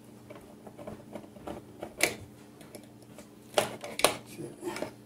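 A few sharp clicks and knocks as a GE stove's surface burner control switch, its wires still attached, is handled and worked loose from its mount: one about two seconds in, two more close together near the end.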